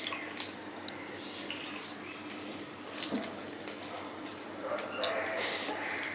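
Close-miked eating sounds: wet chewing and lip smacks while eating rice by hand, with fingers squishing and mixing rice on a steel plate and scattered sharp clicks.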